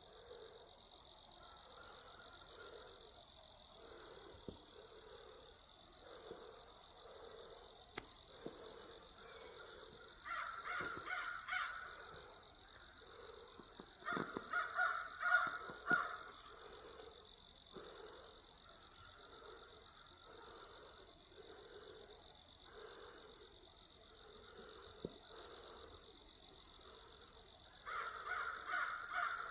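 Crows cawing in three bursts of several quick calls each, about ten seconds in, again around fourteen to sixteen seconds, and near the end.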